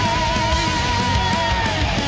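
Heavy metal played live by a full band: an electric guitar lead holds one long high note with vibrato over distorted rhythm guitar and drums, letting it go near the end.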